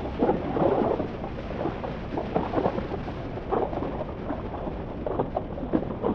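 Wind rushing and buffeting over the microphone of a 2021 Harley-Davidson Forty-Eight ridden at highway speed, in uneven gusts, with the low rumble of its 1200cc Evolution V-twin and road noise underneath.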